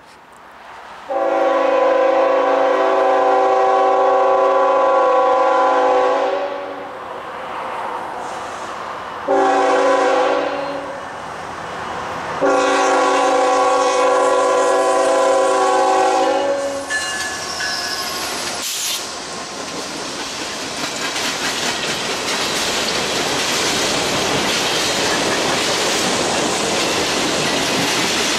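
Norfolk Southern freight locomotive's multi-note air horn sounding for a street crossing: a long blast about a second in, a short one near ten seconds, and another long one ending near seventeen seconds. After that the rumble and rattle of the approaching locomotives and coal hopper cars grows louder and stays up to the end.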